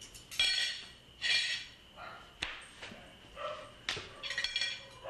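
An animal giving a string of short, high calls, roughly one to two a second.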